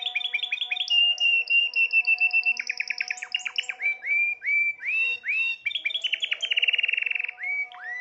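Timbrado Spanish canary singing a varied, continuous song. A held note gives way to a run of repeated notes sliding up and down in pitch, then a very fast trill near the end.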